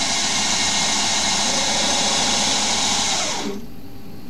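Small benchtop CNC lathe running, with a steady whirring hiss, as a boring bar finishes the end of the M20 thread bore in an aluminium part. About three and a half seconds in the hiss cuts off and the DC spindle motor winds down with a falling whine.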